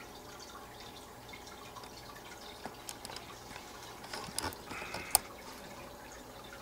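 Water trickling and dripping in a fish tank, over a low steady hum. A few small clicks come through the middle, and one sharp click a little after five seconds in.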